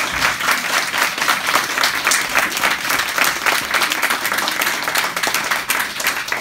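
Audience applauding: a roomful of people clapping in a dense, steady run of hand claps.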